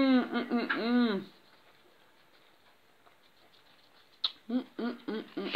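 A woman humming 'mmm' with a mouthful of pizza: a few rising-and-falling hums, a pause of about three seconds, then a click and a run of short, quick hums.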